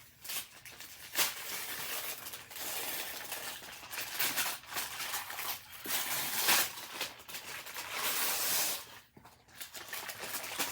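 Gift wrapping and packaging being torn and crinkled as a present is unwrapped: ragged, uneven rustling and ripping, with a short lull near the end.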